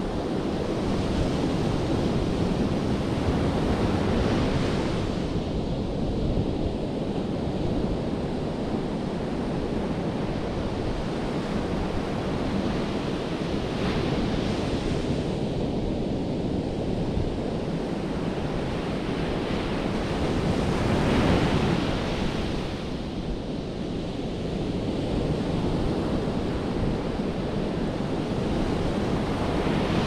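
Atlantic Ocean surf breaking on a sandy beach: a continuous wash of waves that swells with each incoming breaker, loudest about two-thirds of the way through.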